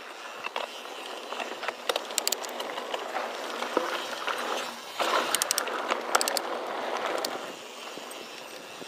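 Mountain bike rolling over a rocky dirt trail: tyres crunching on gravel with rattles and sharp clicks, loudest from about five seconds in.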